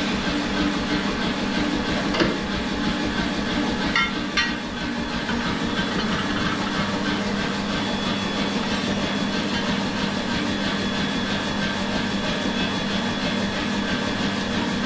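Forge workshop machinery running with a steady hum, with a few light metal clinks about two and four seconds in.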